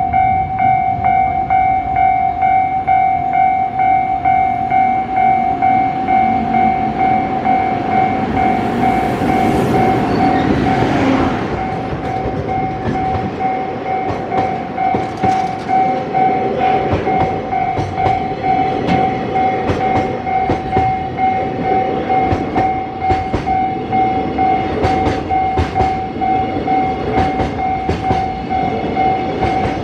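Japanese level-crossing warning bell ringing in a steady repeating tone while a freight train passes. About ten seconds in there is a louder rush of train noise. After that, the freight wagons' wheels clack over the rail joints in a regular rhythm.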